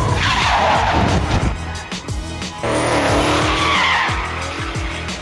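Drift cars sliding on asphalt: tyres squealing and engines revving, with the revs repeatedly falling away. Music plays underneath.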